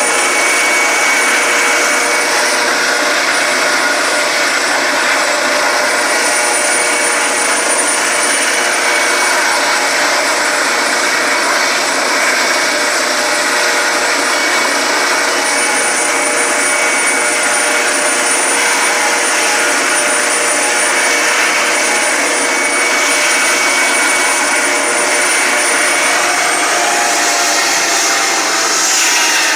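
Helicopter running steadily at close range: loud turbine and rotor noise with a steady high-pitched whine.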